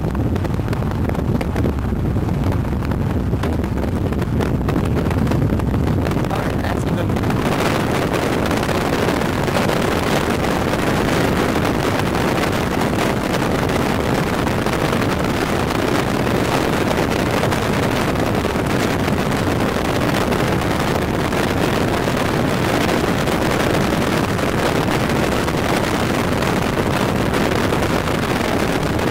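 Steady rumble of a moving vehicle with wind rushing past. About seven and a half seconds in, a much brighter wind hiss comes in and stays, loud on the microphone.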